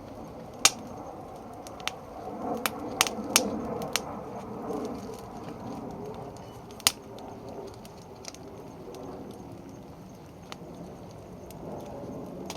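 Conifer firewood burning, crackling with sharp, irregular pops over a steady low hiss, several pops close together about three seconds in.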